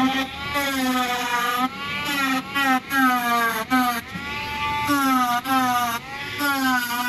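Grinder grinding down welds over stress cracks in an excavator's metal engine cover. Its whine sags and recovers in pitch as it is pressed in, with several brief breaks where it is eased off.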